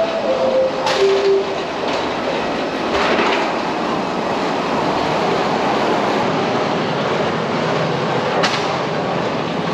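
Steady rumbling rattle of suitcase wheels rolling over a hard terminal floor, with footsteps, as travellers walk down a long airport corridor. The last notes of a falling electronic chime sound at the very start.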